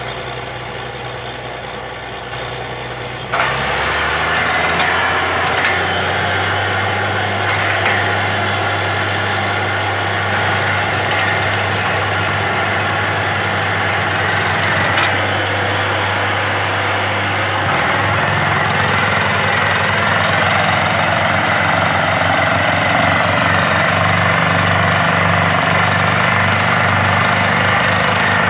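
Truck-mounted borewell drilling rig running: its engine runs steadily, then about three seconds in a loud rushing blast of compressed air comes on suddenly and the engine picks up under load as the rig drills and blows rock dust out of the borehole. The engine note steps up again past the middle and the loud rush carries on.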